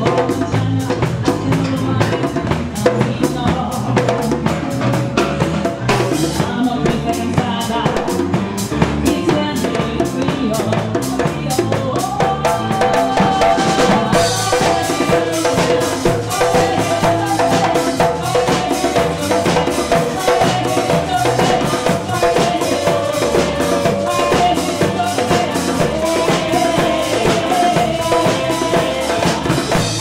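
Live band playing with drum kit, congas, electric bass and guitar, keeping a steady, dense beat. About twelve seconds in, a held melodic line comes in over the rhythm.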